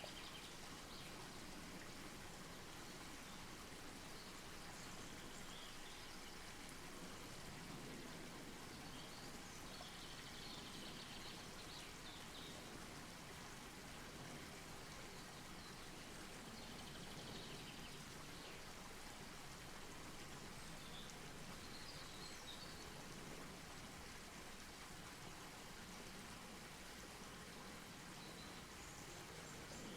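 Campfire burning with a faint, steady hiss.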